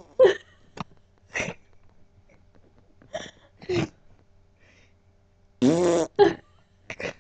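A young woman's short, silly voiced noises: about seven brief squawk-like vocal bursts with pauses between them, and a longer, stronger one about six seconds in.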